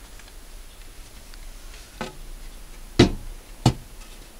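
Wooden strips of poplar and alder knocking against each other as they are handled: three short knocks, the loudest about three seconds in.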